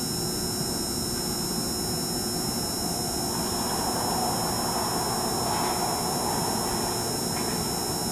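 MARTA rapid-transit train approaching along the track toward the platform, its rumble building from about three seconds in over a steady background hum.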